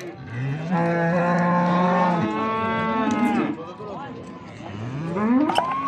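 A calf mooing twice: one long call that rises in pitch and then holds, and a second, steeply rising call that begins near the end.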